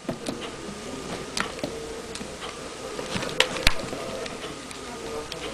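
Sporadic sharp clicks and taps of mobile phones being handled, the loudest a pair of clicks about three and a half seconds in, over a faint steady buzzing hum.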